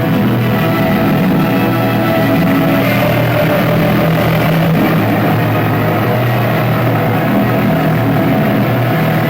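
Loud, unbroken wall of distorted noise music, with steady droning tones low down under a dense haze.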